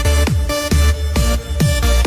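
Electronic dance music with a heavy, steady kick-drum beat and synth chords.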